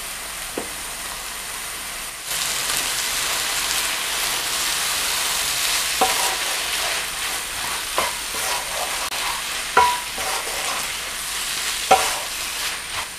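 Chicken, scrambled egg and onion-tomato masala sizzling in a black wok while a wooden spatula stirs and tosses them. There are a few sharp knocks of the spatula against the pan. The sizzle grows louder about two seconds in.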